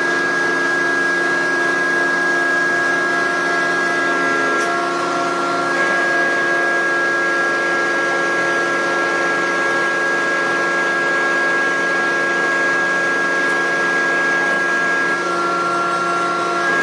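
Boom-type roadheader running with its cutting head spinning freely in the air, not cutting. Its motors and hydraulics make a steady high whine over a lower hum, and the whine dips slightly in pitch twice as the boom moves.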